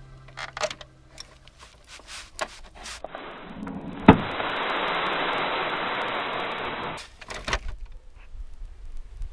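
Plastic toy dump truck's tipper body clicking as it is raised, then the load of sand and fine gravel sliding out in a steady hiss for about four seconds, with a sharp click as it starts to pour; a few more plastic clicks follow.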